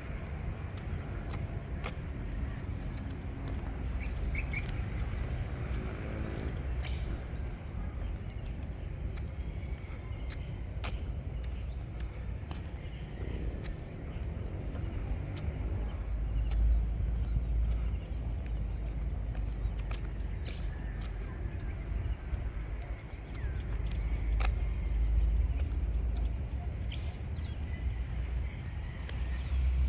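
A steady, high insect chorus of crickets shrilling without a break. Under it is a low rumble on the microphone that swells twice in the second half.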